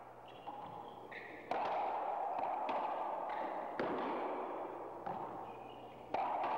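Racquetball rally on an indoor court: the ball is struck by racquets and smacks off the walls and floor, sharp cracks every second or so, with short high squeaks in between.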